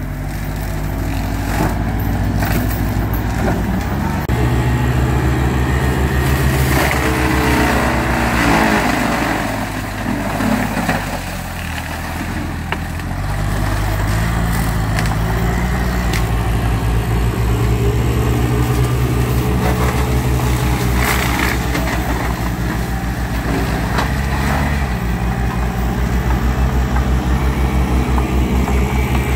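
Bobcat T300 compact track loader's diesel engine running under load, driving a Timber Axe forestry mulcher head as it chews through brush and saplings. The engine drone sags for a couple of seconds about ten seconds in, then builds back up and holds steady.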